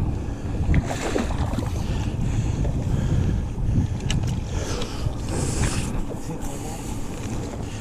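Wind buffeting the microphone in a low, steady rumble, with a few light clicks and knocks on top.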